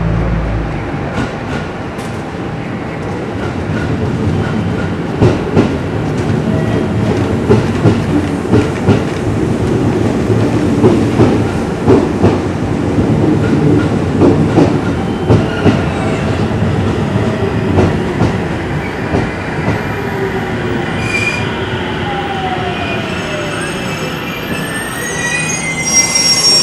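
JR Central 313 series 8000-subseries six-car electric train running into a platform and braking to a stop. Its wheels click repeatedly over the rail joints as the cars pass, a whine falls in pitch as it slows, and high brake squeals come near the end as it halts.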